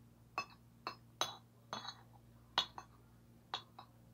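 Metal cutlery clinking against a plate: about nine light, sharp clinks with a brief ring, at irregular intervals.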